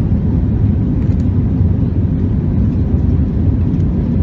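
Steady low rumble inside the cabin of an Airbus A321-200 climbing out after take-off: its jet engines at climb power and the rush of air past the fuselage, heard from a window seat over the wing.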